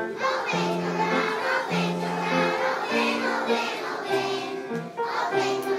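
A kindergarten children's choir singing a song together.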